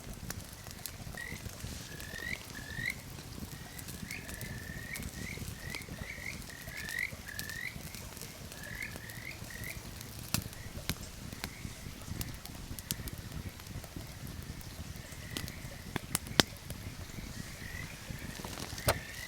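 Animal calls: a run of short, hooked chirps repeating about twice a second for the first ten seconds, then fainter and sparser. A few sharp clicks come later, the loudest about sixteen seconds in.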